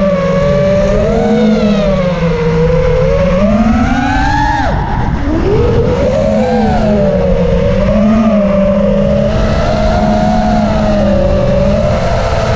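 FPV quadcopter's electric motors and propellers whining, the pitch wavering up and down with the throttle. About four seconds in the pitch rises steeply, then drops sharply and climbs back.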